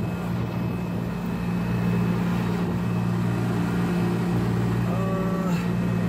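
Carrier heat pump unit running, its compressor and fan making a steady low hum.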